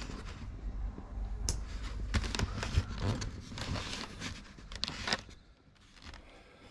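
Rustling, scraping and sharp clicks of handling close to the microphone of a helmet-mounted camera as the helmet is moved about. It quietens after about five seconds.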